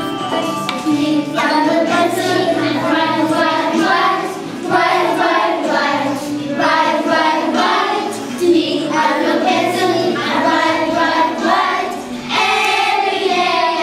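A group of young children singing a song together in chorus, in phrases a few seconds long with short breaks between them.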